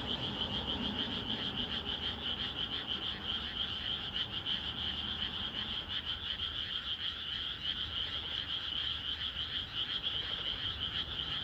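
A dense chorus of many frogs calling together without a break, a rapid pulsing trill.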